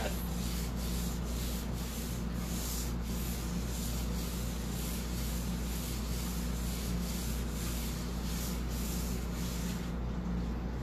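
Cloth rag rubbed back and forth over a wooden tabletop in repeated strokes, working Chalk Paint into the grain as a stain; the rubbing stops near the end. A steady low hum runs underneath.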